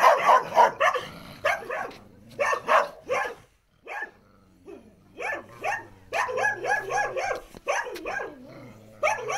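Dogs barking aggressively in quick runs of short barks, with a lull about four seconds in and a fast run of barks again from about six seconds.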